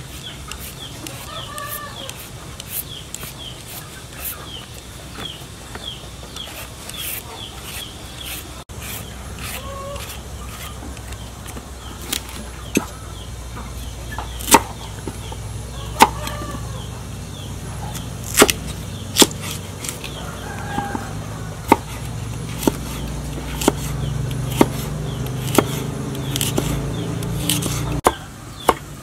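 Chickens clucking on and off. From about halfway, a cleaver strikes a wooden chopping board in separate cuts while slicing a carrot, the strokes coming faster near the end.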